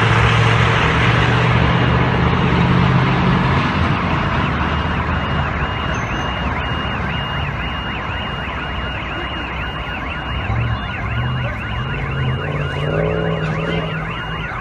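An electronic alarm siren wails in quick, evenly repeated rising-and-falling sweeps, which take over about four seconds in after a steadier high tone. A low vehicle engine drone runs underneath, strongest in the first few seconds.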